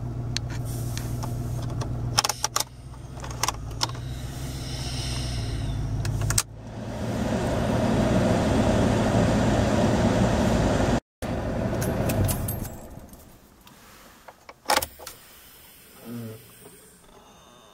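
Heater and blower of a 1989 Lincoln Town Car's automatic climate control running. A steady hum with a few clicks comes first, then a louder rush of air from the dash vents starts about six seconds in. It dies away after about twelve seconds, and a few clicks and a brief low sound follow near the end.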